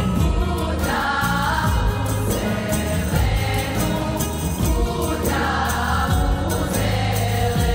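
A choir singing a folk song in unison, held notes over an instrumental band with a steady beat.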